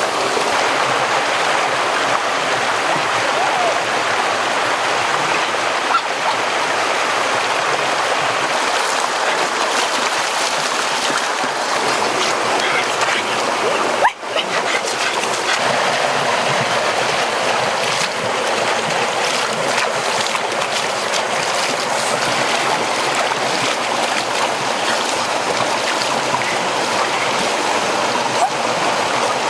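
Shallow rocky stream rushing over small cascades, a steady loud rush of water, with occasional splashing from hands dipping into it.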